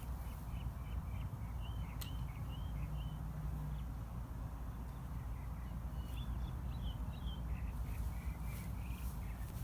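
A bird calling in quick runs of short chirping notes, two runs a few seconds apart, over a steady low rumble.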